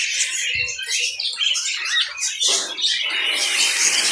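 Many small caged birds chirping and chattering at once, a dense high-pitched twittering of short overlapping calls.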